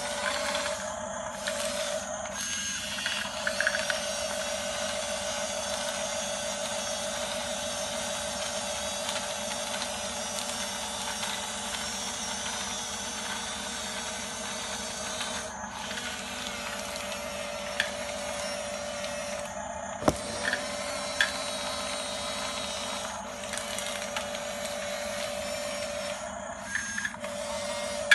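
Radio-controlled toy bulldozer's electric drive motors and plastic gearboxes whining steadily as it drives, stopping briefly a few times. Scattered clicks and knocks, with the sharpest about twenty seconds in.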